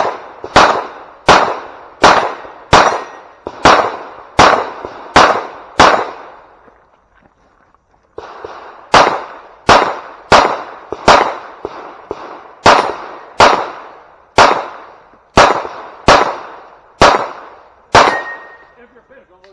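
9mm Glock 17 pistol firing a timed stage: about nine shots at an even pace of roughly one and a half a second, a gap of about three seconds, then about twelve more shots at the same pace.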